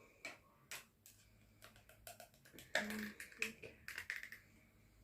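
Small plastic figure and display stand being handled: a scattered series of sharp clicks and taps, the busiest run about three seconds in.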